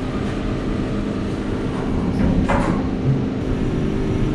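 Steady low mechanical hum, with a short rushing, scraping noise about halfway through.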